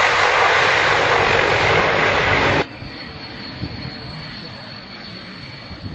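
Aircraft engine noise, loud and steady, that cuts off abruptly about two and a half seconds in, leaving a much quieter background with a faint, thin, high steady tone.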